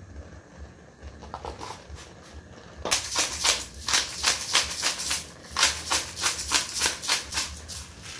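A hand pepper grinder being twisted, crunching black peppercorns. Quick grinding strokes, about four a second, begin about three seconds in.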